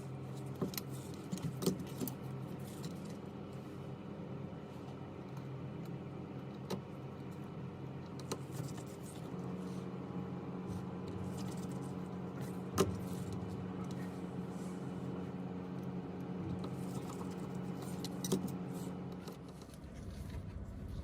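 A steady mechanical hum, like a small motor running, that gets stronger about nine seconds in and eases off near the end. Occasional small sharp clicks and taps sound over it.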